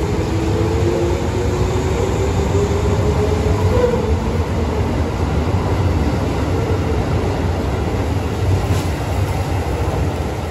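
JR 211 series 3000 electric multiple unit pulling out and accelerating past, its wheels rumbling on the rails. The traction motors and gears give a whine that rises in pitch over the first few seconds, then fades as the cars go by.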